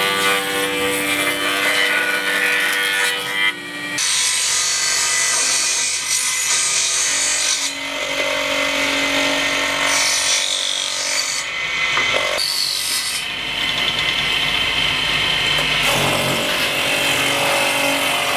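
Small table saw running and cutting thin strips of wood. The sound changes abruptly every few seconds as the cuts follow one another.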